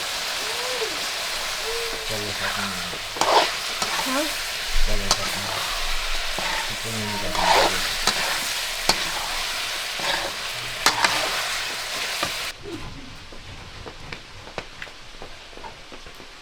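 Chicken frying and sizzling in a pan while it is stirred, with a utensil knocking and scraping the pan several times. The sizzle cuts off suddenly near the end, leaving a quieter background.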